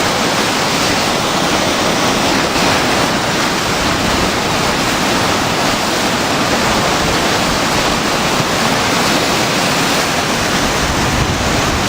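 Flood-swollen river rushing fast: a loud, steady roar of fast-moving water with no letup.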